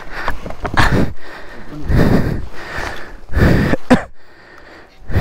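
Heavy breathing and gasps from people straining to heave a motorcycle up a rock step, coming in loud bursts about a second apart, with a short grunt near the four-second mark.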